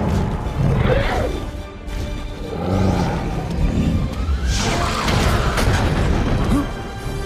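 Dramatic film score music with battle sound effects laid over it. A loud rushing blast rises about four and a half seconds in.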